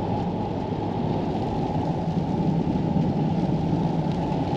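Pickup truck driving down the road, heard from inside the cab as a steady low rumble of engine and tyre noise with a constant drone underneath.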